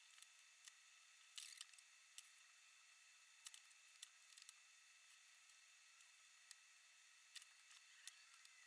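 Faint, scattered small clicks and taps from a screwdriver and small screws being handled against hard 3D-printed plastic parts, at uneven intervals over near silence.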